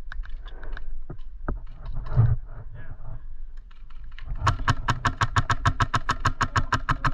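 Airsoft gun firing a long full-auto burst, an even rapid string of sharp shots at about ten a second, starting a little past the middle and running to the end. Before it come a few scattered single clicks.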